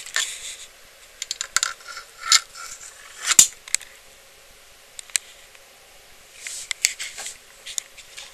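Scattered light clicks and short rustles, the loudest a sharp click about three and a half seconds in.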